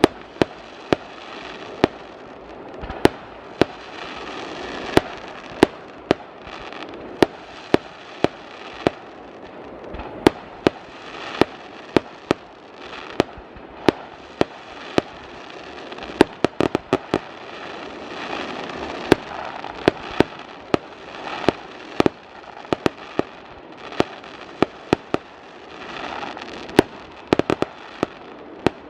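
Fireworks display: a steady run of sharp bangs, several a second at times, over continuous crackling and hissing from the shells.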